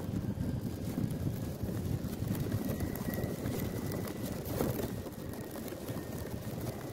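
Wind buffeting the microphone of a mobile phone hanging from a flying kite: an uneven, steady low rumble.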